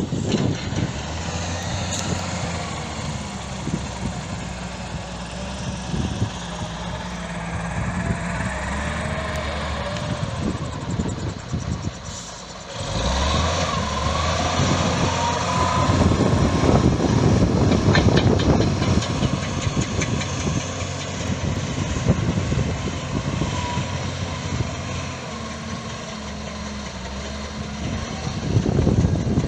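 Engines of heavy road-construction machinery running steadily. The sound changes abruptly about twelve seconds in and is louder afterwards.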